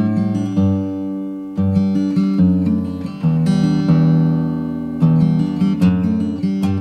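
Background music of plucked and strummed acoustic guitar, with a new chord about every second.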